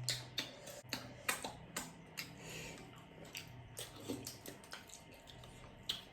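Eating noises while momos are being eaten: a scatter of short, sharp clicks and smacks at irregular intervals, about eight in all, with a faint steady low hum underneath.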